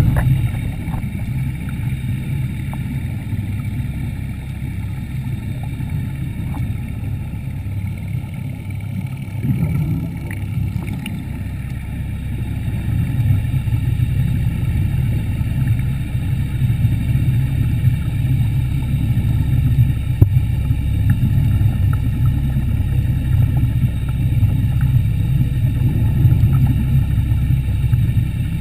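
Underwater scooter's motor and propeller running steadily, heard through a GoPro housing underwater: a low hum with faint steady whine tones above it, growing a little louder about twelve seconds in.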